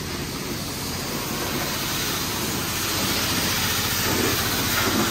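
High-pressure spray from a self-serve car wash wand, a steady hiss of water that grows a little louder.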